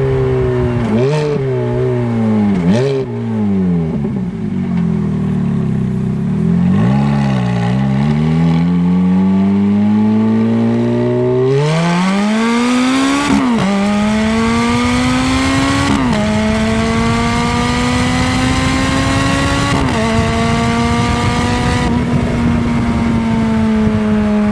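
Ferrari F430's V8 engine accelerating hard. The revs blip up and down a few times, then climb steeply, and quick upshifts of the F1 gearbox each drop the pitch suddenly. The engine then settles into a steady run in a higher gear.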